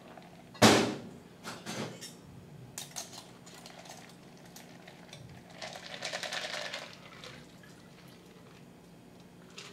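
A stainless cocktail shaker tin and mixing glass knocked apart with a sharp clank about half a second in. Light metal-on-metal clinks follow as a strainer is fitted on the tin, then a brief spell of ice and liquid shifting as the shaken drink is strained into a martini glass.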